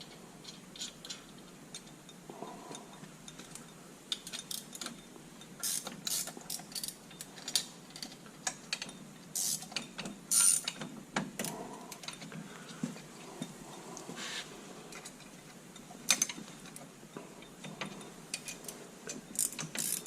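Wrench tightening the bolts on a steel quick hitch: irregular metallic clicks and clinks, with a few louder knocks.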